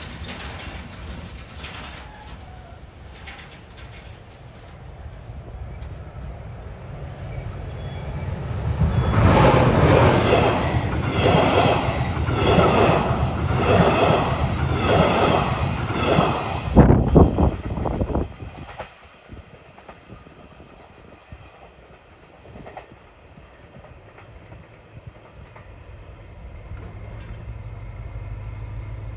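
A double-deck regional express train passes close by, its wheels clattering over the rail in a quick steady rhythm for about ten seconds before the sound drops off abruptly as the last coach clears. A short faint wheel squeal comes about a second in, and near the end a low diesel engine drone grows louder.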